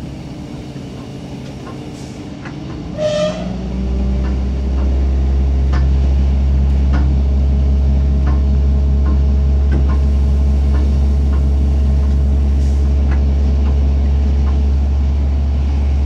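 Steady low rumble and drone of a moving vehicle, turning much louder about four seconds in, with scattered light clicks. A short high tone sounds once about three seconds in.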